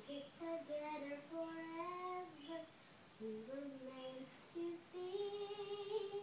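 A young girl singing a made-up tune in short phrases of held, gliding notes, pausing briefly twice.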